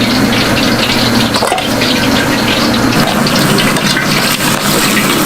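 Food sizzling on a hot griddle: a steady loud hiss packed with fine crackles, over a low steady hum.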